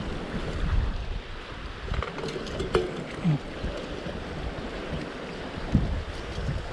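Wind buffeting the microphone over small waves lapping on a gravel and rock shoreline, with a few light clicks and knocks about two to three seconds in.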